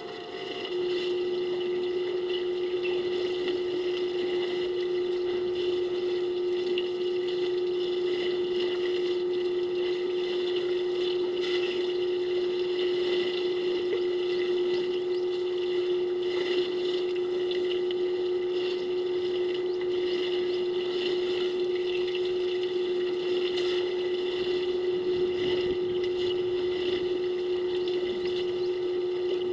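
A steady mechanical hum with one constant pitch, switching on about a second in and holding unchanged, over a faint even hiss.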